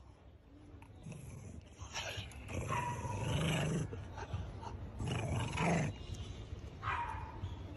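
A dog growling in three rough bursts, the loudest in the middle, while biting and tugging on a sausage.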